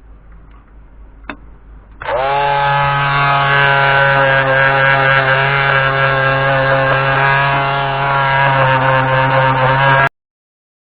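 Black & Decker electric palm sander with 120-grit paper, switched on about two seconds in after a single click, spinning up and then running steadily at full speed while sanding the edges of pine scaffolding-board pieces. It cuts off abruptly near the end.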